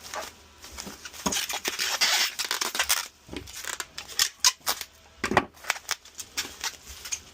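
Bubble wrap being handled and wrapped around a vacuum handle: crinkling and rustling plastic with many sharp crackles and clicks, densest for a couple of seconds about a second in.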